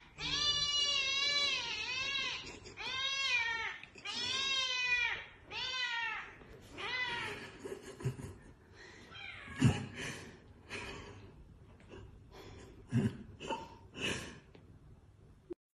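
Domestic cat meowing, about six drawn-out meows that rise and fall in pitch over the first seven seconds. Then come fainter short sounds and a few sharp thumps, the loudest just before the ten-second mark.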